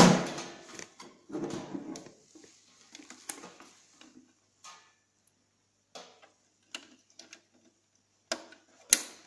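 Handling noise of a plastic receipt printer and its cable: a loud knock as the printer is picked up, then rustling and scattered light clicks. Two sharp clicks near the end as the RJ11 plug is pushed into the printer's cash drawer port.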